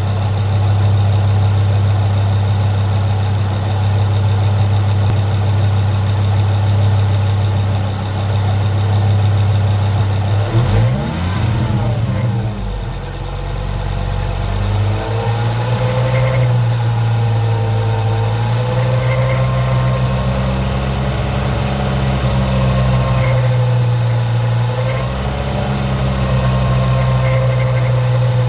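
Ford Focus ST 2.5-litre five-cylinder turbo engine running at low revs with a steady low drone. About eleven seconds in the pitch sweeps up and back down, then settles into a steady drone with a faint wavering higher tone over it. This is the noise the owner hears at around 1500 rpm, its cause not known.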